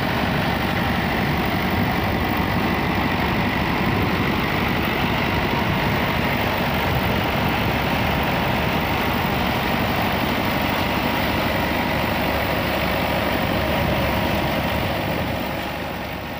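New Holland Fiat 640 diesel tractor engine running steadily, driving a wheat thresher through its PTO, the thresher's drum whirring along with it. The sound fades out near the end.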